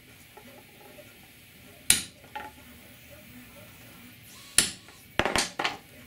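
Ball-peen hammer striking a center punch on a Lexan panel backed by a wood block, marking hole centres for drilling. There are two sharp single strikes about two and a half seconds apart, then a few quicker knocks near the end.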